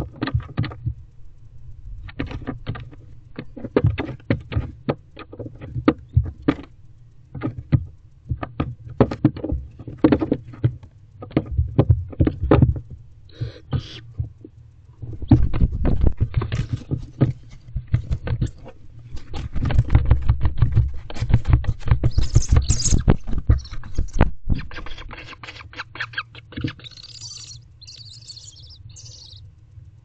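Barn owls and their owlets flapping and shuffling in a nest box: many knocks and scuffs of wings and feet against the box walls and nest floor, busiest in the middle. High-pitched barn owl twittering calls come in now and then, most in the second half.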